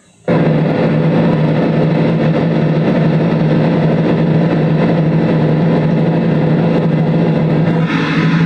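The engine of a passenger launch under way, cutting in suddenly just after the start and then running as a steady, loud, low drone. A brighter hiss of wind and water joins near the end. It is heard as old camcorder sound played back through a laptop speaker.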